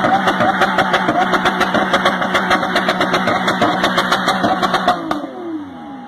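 Car engine revved hard with a fast, even pulsing, then the revs fall away with dropping pitch about five seconds in.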